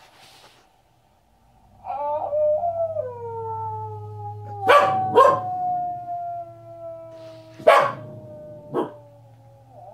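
Howling starts about two seconds in: several voices in long, slowly falling notes that overlap, from wolves on a TV documentary and a Pembroke Welsh Corgi howling along. Four short, sharp barks break in around the middle.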